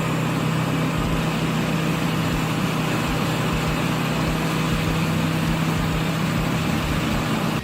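Wood chipper running steadily: a constant low engine hum under a broad, even rushing noise, cutting off suddenly at the end.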